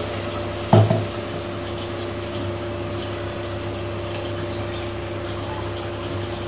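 Freshly poured water bubbling in a cooking pot of khichdi base, over a steady low hum. A single heavy thump sounds just under a second in.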